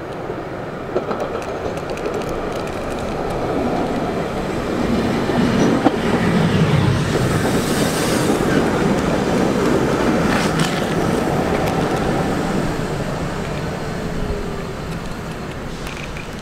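Cleveland RTA Breda light rail car running past along a station platform. It grows louder to a peak about halfway through and fades after. Its wheels clack over the rail joints, and there is a brief high hiss around the loudest point.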